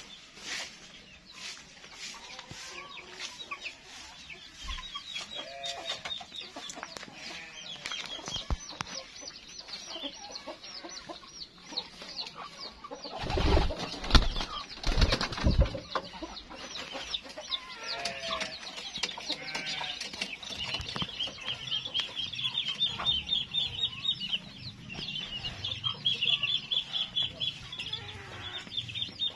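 Pigeons flapping their wings, with a cluster of loud wingbeat bursts about halfway through. Chickens cluck and birds chirp throughout, with fast high chirping in the later part.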